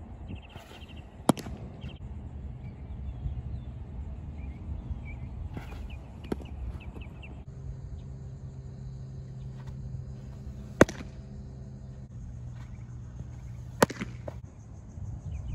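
Baseball pitches smacking into a catcher's leather mitt: sharp, separate pops several seconds apart, one fainter than the rest, over a low steady outdoor hum.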